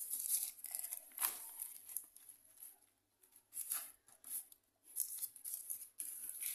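Baking paper crinkling and rustling in irregular bursts as hands coil and press a rope of stuffed dough onto it in a round tray.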